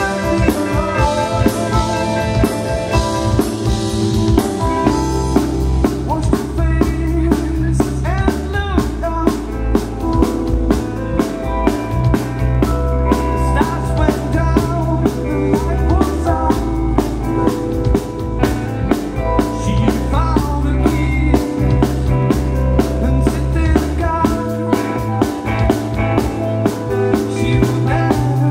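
A band playing music with a steady drum-kit beat and a bass line under sustained instrument notes.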